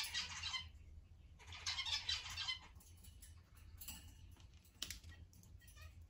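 Cockatiels feeding at a bowl of pumpkin pulp and seeds, their beaks picking and crunching into it. The sound comes as two scratchy, crackling bursts of about a second each near the start, then a few scattered clicks.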